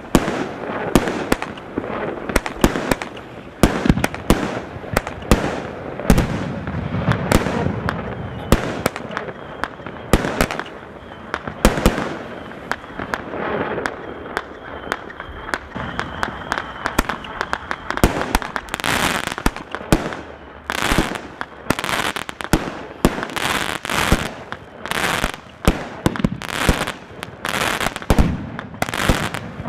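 Consumer firework barrage cakes (Celtic Fireworks 6 Pack) firing: a rapid run of shots and aerial bursts, coming thicker and louder from about eighteen seconds in.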